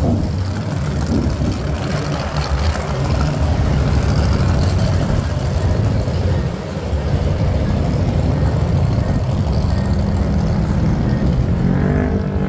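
A vehicle engine running steadily.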